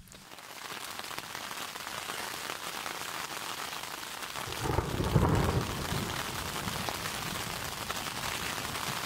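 Thunderstorm: a steady hiss of heavy rain, with a low roll of thunder swelling about five seconds in.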